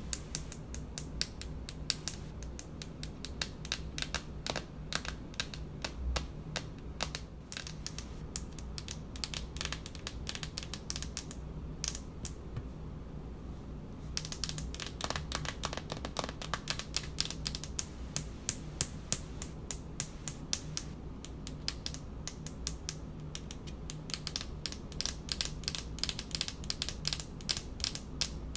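Long fingernails tapping on a speckled countertop: rapid flurries of sharp little clicks, thinning out for a couple of seconds before the middle and then picking up again.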